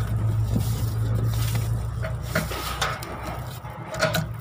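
Roofing work with corrugated metal sheets: scattered light knocks and clinks over a steady low hum that fades about halfway through.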